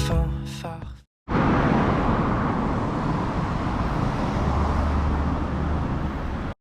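Background music fading out, a moment of silence, then steady outdoor street ambience: a dense, even din of city noise.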